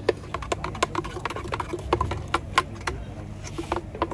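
Irregular sharp plastic clicks and taps, several a second, as a thick blended coconut smoothie is poured and knocked out of a plastic blender jar into a cup. A low steady hum runs under it.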